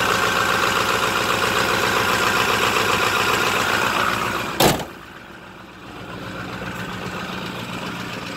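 Ford F350's 6.4-litre Power Stroke V8 turbo-diesel idling steadily a minute after a cold start, running great. A little over four and a half seconds in comes one loud slam as the hood is shut, and the idle then sounds quieter and muffled.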